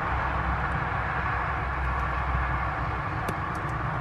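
Steady low rumble and hiss of background noise, with a few faint small clicks a little over three seconds in.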